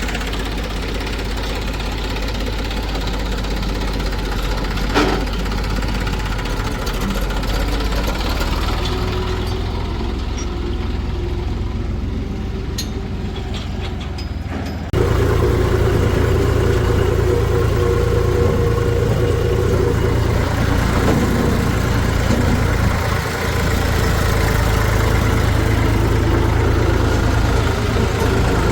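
Diesel engines of a backhoe loader and tractors running steadily, with a single sharp knock about five seconds in. Halfway through, the engine sound jumps suddenly louder and stays that way.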